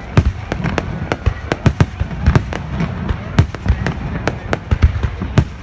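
Aerial fireworks display going off: a rapid, irregular string of sharp bangs, several a second, over a continuous low rumble of shell bursts.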